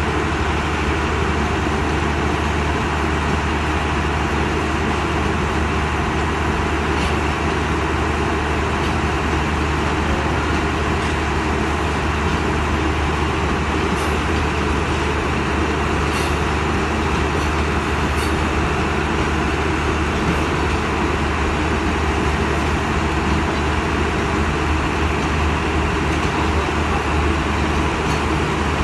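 Diesel locomotive at the head of a standing passenger train, its engine running steadily with a loud, unchanging low rumble.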